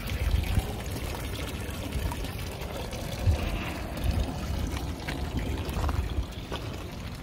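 River water lapping and trickling at the shoreline.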